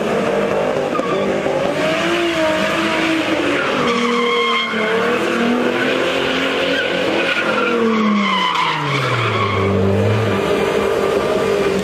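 A Ford Mustang revving hard while spinning donuts, its rear tyres squealing continuously. About eight seconds in, the engine revs fall away and hold at a low note for a moment before climbing again.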